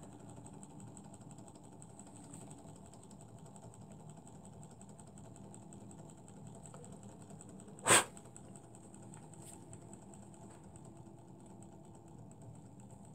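Small brass tandem-crank model Stirling engine running, a faint steady mechanical clatter from its cranks and flywheel. A single sharp click about eight seconds in.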